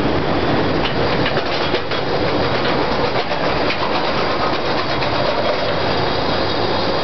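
Walking beam furnace in operation: a loud, steady industrial din with scattered metallic clicks and clatter.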